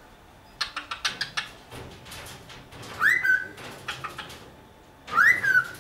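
Cockatiel whistling twice, about two seconds apart, each whistle a quick rising note that drops to a short held tone. A quick run of clicks comes before the first whistle.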